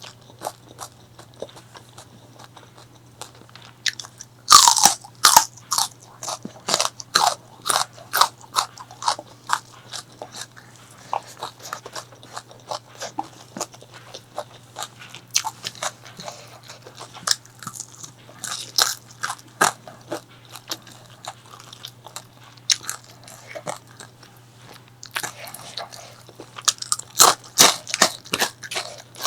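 Close-miked biting and chewing of crunchy food: a first loud crunching bite about four and a half seconds in, then a fast run of crunches. Softer chewing follows, then another burst of crunching near the end, over a faint steady low hum.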